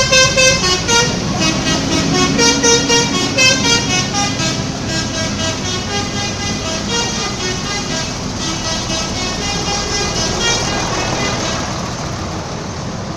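Telolet multi-tone bus horn of the Bulan Jaya "Black Maestro" playing a quick melody of short tooted notes. The tune dies away about eleven seconds in, leaving a steady road rumble.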